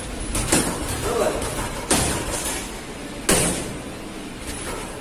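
Punches landing on boxing focus mitts: three loud, sharp smacks about a second and a half apart, with lighter hits between them.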